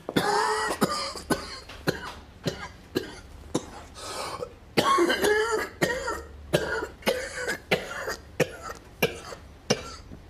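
A man in a long, harsh coughing fit, with hacking coughs about every half second. The coughs are heaviest at the start and again around the middle.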